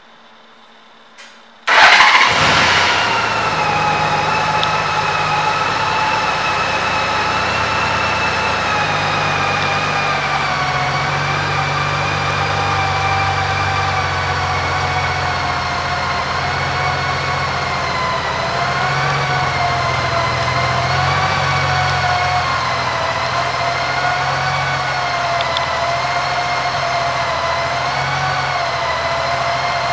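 2015 Honda Valkyrie's 1.8-litre flat-six engine starting after a click about a second in. It flares briefly on catching, then settles into a steady idle with a high whine over it.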